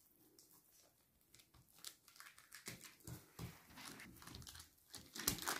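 Faint, irregular soft rubbing and patting of hands pressing and pulling a thin sheet of dough out over parchment paper, with light paper rustles. A slightly louder rustle comes near the end.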